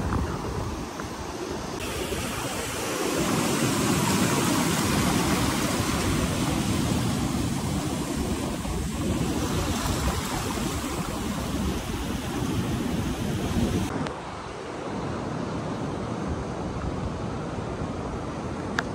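Ocean surf breaking and washing up a sandy beach, one surge swelling louder a few seconds in, with wind rumbling on the microphone.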